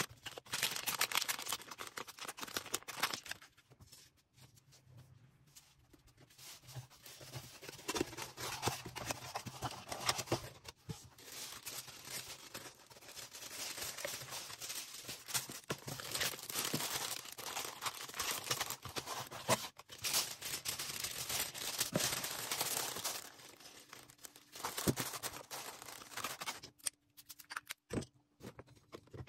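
Plastic packaging being handled: crinkling, rustling and tearing, with short lulls about four seconds in and near the end.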